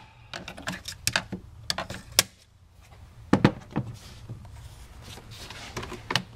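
Plastic clicks and knocks from the air intake snorkel as its clips are released and the snorkel is worked loose from the engine. About eight sharp snaps, the loudest pair about three and a half seconds in.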